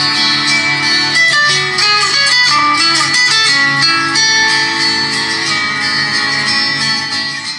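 Phone ringtone with a plucked guitar melody of quick notes, played loud through an 80 W Philips woofer speaker; it fades out near the end.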